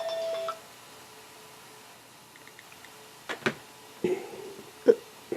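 An electronic alarm tone rings for about half a second and cuts off as it is switched off. Then come a few short knocks and handling bumps, the loudest near the end.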